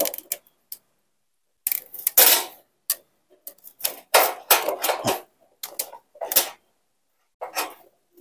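Parts of a small water pump and its pipe fittings being handled and fitted: irregular clicks, knocks and short scrapes with brief silences between. The loudest are about two seconds in and between four and five seconds in.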